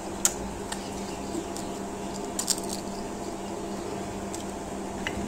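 A few sharp crackles from the crisp crust of deep-fried potato bites being broken and handled by hand, with a small cluster of crunches about two and a half seconds in, over a steady low hum.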